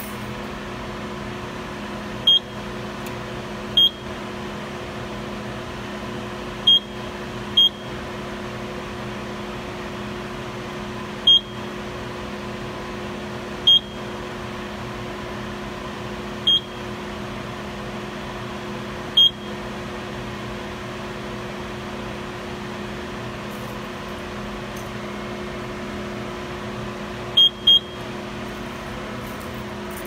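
Simplex fire alarm control panel giving short, high keypad beeps, about ten at irregular intervals with two close together near the end, while it processes a global acknowledge. Under them runs a steady electrical hum from the panel equipment.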